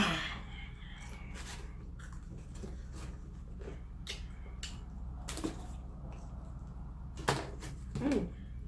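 Close-miked eating sounds: a sharp bite or crunch at the very start, then chewing with scattered mouth clicks, over a steady low hum. A short throaty sound comes near the end.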